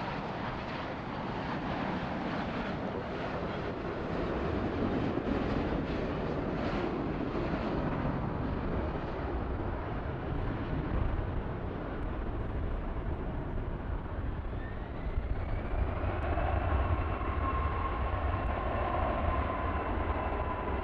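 Boeing 787-9 Dreamliner's GEnx turbofan engines: a broad jet rush as the airliner comes in to land and touches down. About fourteen seconds in, a rising whine and a heavier low rumble build and hold as the engines spool up on the landing roll, typical of reverse thrust.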